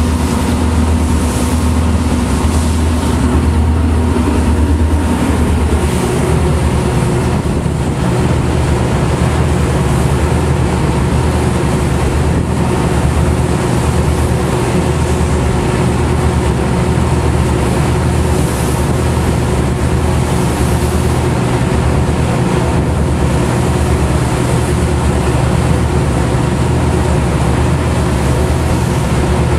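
A tugboat's engines running steadily underway: a loud, constant low drone with a steady hum. There is a slight shift in the low tones about five seconds in.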